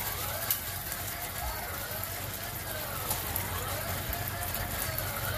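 Pork steak pieces simmering in sauce in a nonstick frying pan, a steady sizzle with small crackles and pops, and a click about half a second in. A faint wavering tone rises and falls in the background.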